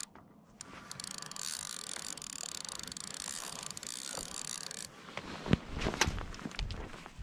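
Spinning reel being cranked, its gears whirring steadily as line is reeled in, stopping about five seconds in. After that, scattered knocks and scuffing footsteps on a gravel shore.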